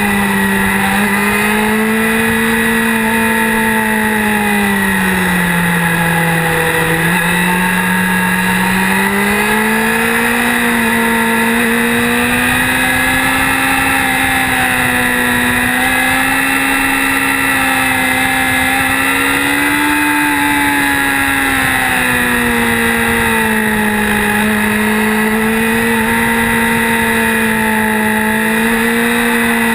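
Motorcycle engine heard from the rider's own bike at canyon riding speed, its revs dropping and climbing as it brakes into and drives out of the bends, with a steady rush of wind and road noise underneath. The pitch dips about five to seven seconds in, climbs to a high about twenty seconds in, then drops back again.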